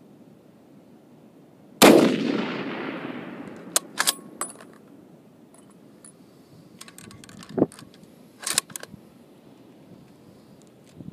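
A single shot from an M1903A4 bolt-action rifle in .30-06, a sharp crack about two seconds in that echoes away over about two seconds. Short metallic clicks follow, a few at a time, as the bolt is worked.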